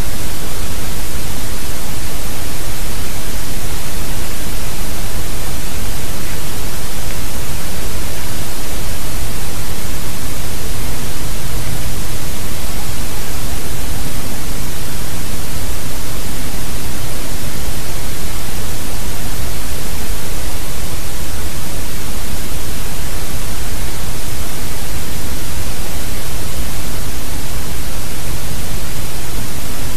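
Loud, steady static hiss across all pitches, unchanging throughout, with no distinct events.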